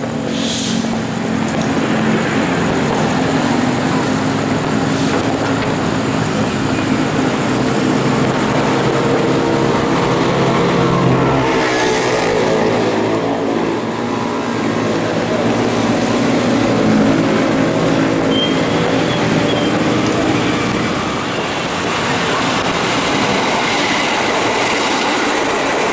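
Diesel locomotive running close by, a steady engine drone over rail noise, its note shifting about twelve seconds in.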